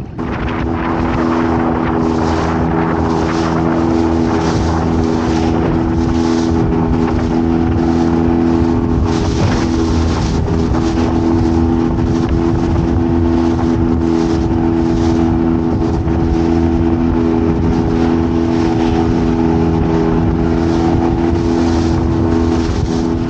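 Small fishing boat's engine running steadily at cruising speed, with the rush of wind and water against the hull swelling and fading about once a second.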